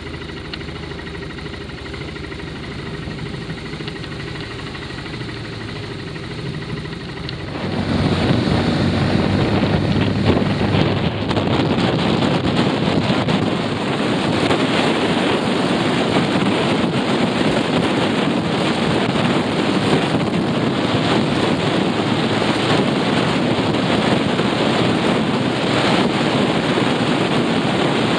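BMW F650GS motorcycle engine running at low speed, a steady hum; about eight seconds in the sound cuts abruptly to loud wind rush over the microphone and road noise from riding at speed.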